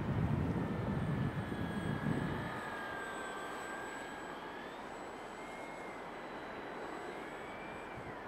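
Whine of an RC Super Cub's A28 1100kv brushless outrunner motor and propeller in flight, its pitch wavering with throttle and dropping sharply near the end. Wind buffets the microphone for the first couple of seconds.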